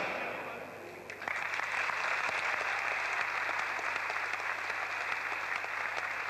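Music fades out, then an audience breaks into applause about a second in and keeps clapping steadily.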